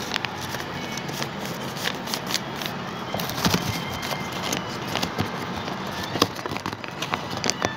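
Sheets of paper being handled and crinkled: irregular rustling with scattered sharp crackles and clicks.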